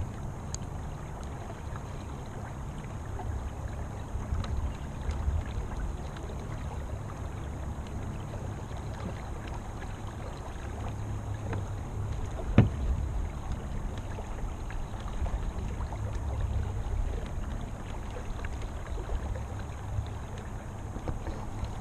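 Low steady rumble of a kayak moving on a lake, water and wind against the hull, with a single sharp knock a little past halfway.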